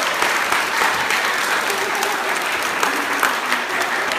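Applause: many people clapping steadily after a performance.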